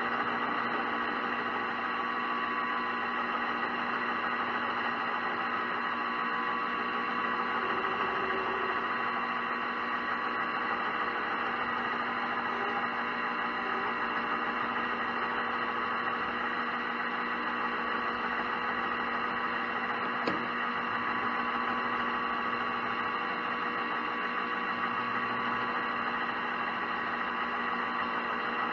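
Metal lathe running at a steady speed while a parting tool slowly cuts off a copper bead: a steady machine hum and whine of several held tones over noise, with one faint click about twenty seconds in.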